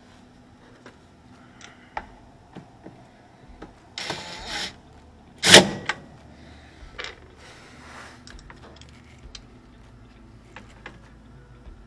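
Work on a washing machine's motor cover and gear-case bolts. Scattered light metal clicks, a brief whirring burst about four seconds in, and a single loud knock about a second later.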